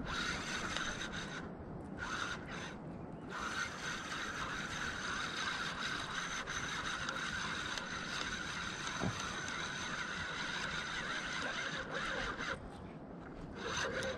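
Spinning fishing reel being cranked steadily, its gears whirring as line is reeled in, with short pauses about one and a half and three seconds in and a longer pause near the end.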